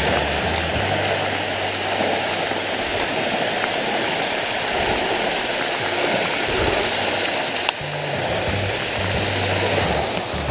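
Steady rushing noise of heavy rain and falling water from a nearby waterfall, with low background music notes stepping underneath.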